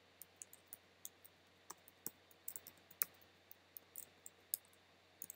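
Computer keyboard keys clicking faintly in an irregular run of keystrokes as code is typed.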